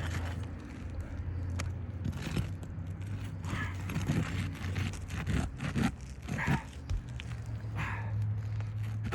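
Short, irregular scraping and prying sounds, bunched from about two to eight seconds in: a RoofSnake tool working under asphalt shingles to break the seal and pull the nails. A steady low hum runs underneath.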